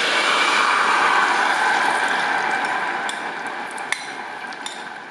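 Dark chilli sauce poured into hot oil and fried ginger in a stainless saucepan, sizzling and fading over a few seconds. A few light clicks of chopsticks against the pan come near the end.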